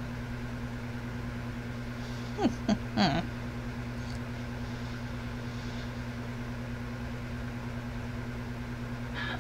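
Steady low electrical hum, with a brief voice sound about two and a half to three seconds in.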